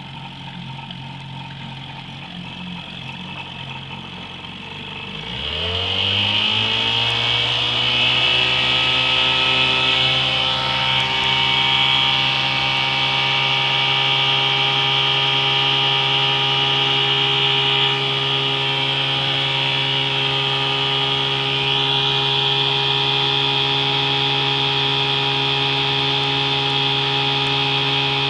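Vintage Evinrude 5.5 hp two-stroke outboard motor idling, then opened up about five seconds in, its pitch rising quickly. It then runs steadily at high revs, driving the boat at speed.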